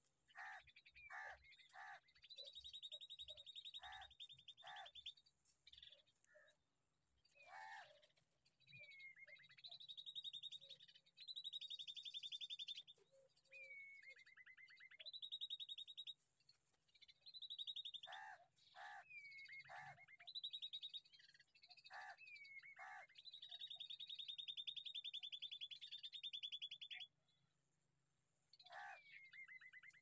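Bulbul nestlings begging to be fed at the nest: long, raspy, rapidly pulsing calls of one to three seconds each, some dropping in pitch, mixed with short sharp chirps.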